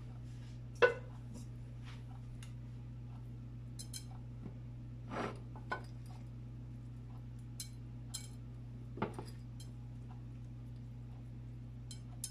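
Glass kitchenware clinking and knocking now and then, a sharp knock about a second in and lighter clinks scattered after it, while corn kernels are spread by hand in a glass baking dish. A steady low hum runs underneath.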